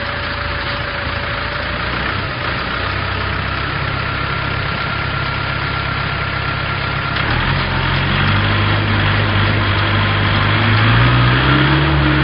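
Wheel loader's diesel engine running steadily, its note rising in two steps, about seven seconds in and again near the end, as it revs up.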